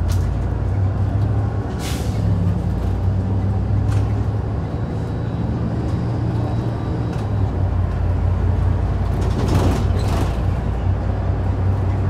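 Hyundai Super Aero City city bus driving, heard from inside at the front of the cabin: a steady low engine drone under road noise. Short bursts of hiss come about two seconds in and twice close together near ten seconds.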